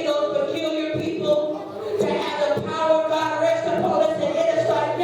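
Church worship singing: voices holding long, sliding notes, with music, in a large hall.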